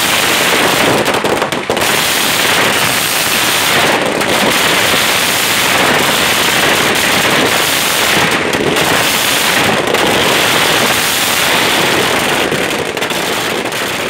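Firecrackers going off in a long, loud, dense crackle of rapid bangs that runs on with only a few brief dips.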